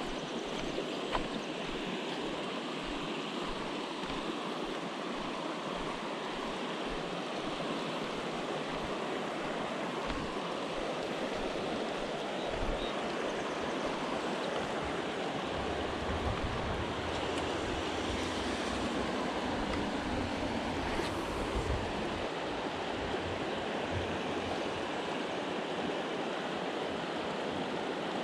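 River water rushing steadily, with a few low rumbles of wind on the microphone partway through.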